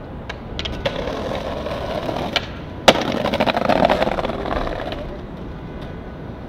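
Skateboard on stone paving: a few light clacks, then one sharp board slap about three seconds in, followed by the wheels rolling with a rapid clatter over the paving joints that fades out.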